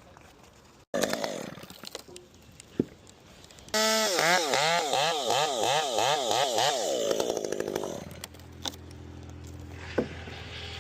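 Petrol chainsaw. It comes in suddenly about a second in, then its engine speed swings up and down rapidly for several seconds as it is revved. Near the end it drops to a steady idle.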